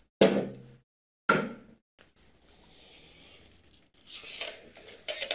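Glass canning jars set down into an autoclave: two knocks with a short ring about a second apart, then quieter scraping and rustling as they are shifted into place.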